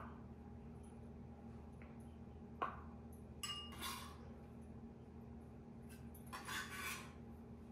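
Kitchen knife on a wooden cutting board while cutting up hard-boiled eggs: a few faint knocks and clinks, with short clattering scrapes at about three and a half seconds in and again at about six and a half seconds.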